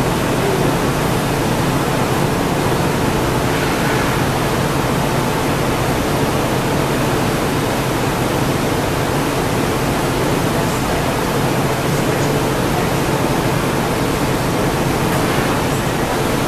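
Steady loud noise of a glassblowing hot shop's furnace and glory hole burners and ventilation fans, with a low hum underneath.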